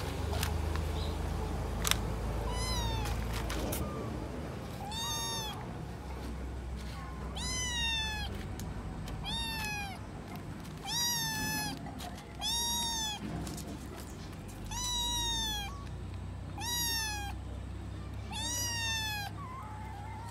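Kittens meowing over and over, about nine calls roughly two seconds apart, each one rising and then falling in pitch. A single sharp click comes about two seconds in.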